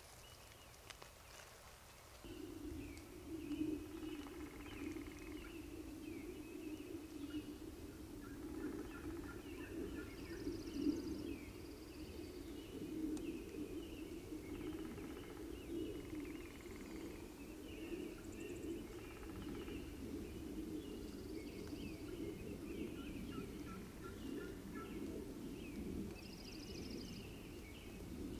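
Wild turkey gobbler gobbling several times, in short bursts every few seconds, with small birds chirping. A steady low hum starts about two seconds in and runs under it.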